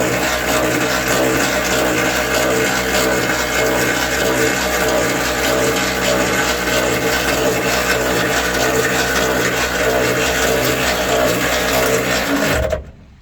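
Power drill running steadily as it drives the spare-wheel winch, reeling the chain in to lift the spare wheel up under the car; near the end it stops and winds down with a falling pitch.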